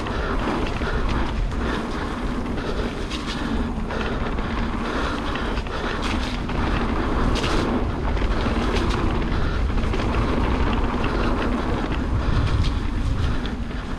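Wind rushing over the microphone as a mountain bike rolls down a dirt trail, with frequent clicks and rattles from the bike over bumps.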